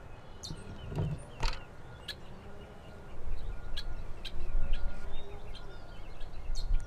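Birds chirping in short scattered calls over low background noise, which gets louder about three seconds in.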